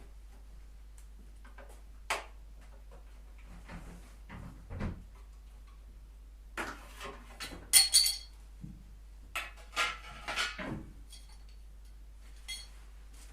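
Metal hand tools and metal parts clinking and clanking in irregular knocks, with a few sharp, ringing metallic strikes a little past the middle, as parts come off a motorcycle being taken apart.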